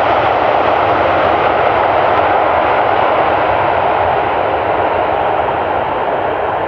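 Jet engines of a Boeing 747-400F freighter during its landing rollout: a loud, steady rush of engine noise that slowly fades as the jet decelerates down the runway.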